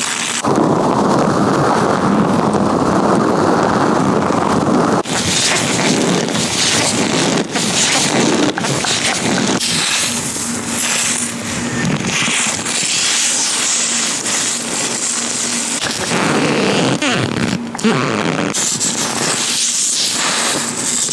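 Latex-gloved hands rubbing and gripping close against a microphone: a dense rubbing noise for about the first five seconds, then uneven rubbing with many short crackles.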